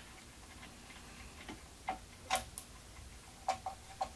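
A handful of light, irregular metallic clicks and taps, the sharpest about two and a half seconds in: small screws and metal parts knocking as a steel bearing block is bolted onto the CNC router's frame.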